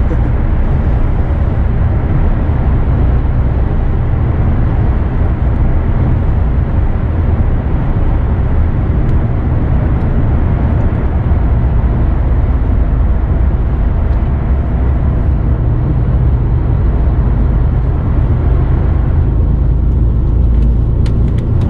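A heavy truck's engine running, heard from inside the cab: a steady low drone, its higher noise easing a little near the end.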